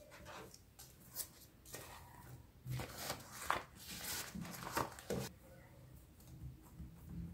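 Crinkling rustles of a thin plastic film being peeled and pulled away from a sheet of puff pastry as it is unfolded. The rustles are densest from about three to five seconds in. After that come softer sounds of hands pressing the pastry flat.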